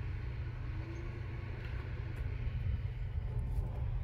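Low, steady outdoor background rumble, with a faint brief tone about a second in.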